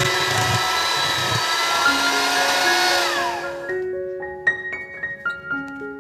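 Electric hand mixer running at speed, beating whipped cream into cream cheese. It winds down with a falling whine and stops a little past halfway. Light piano music plays throughout.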